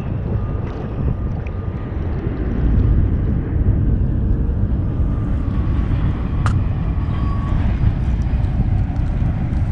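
Wind buffeting the microphone, steady and heavy in the low end, over choppy lake water washing against a kayak. One sharp click about six and a half seconds in.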